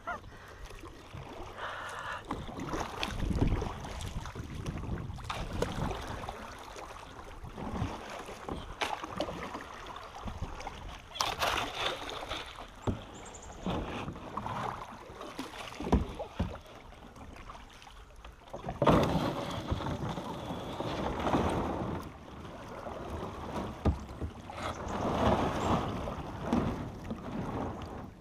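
Water splashing and sloshing around a canoe or kayak, with a few sharp knocks against the hull.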